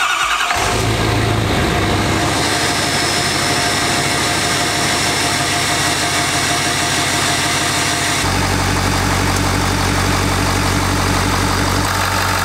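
Ford 6.7-litre Power Stroke V8 turbodiesel idling steadily just after starting up. Its low hum deepens about eight seconds in.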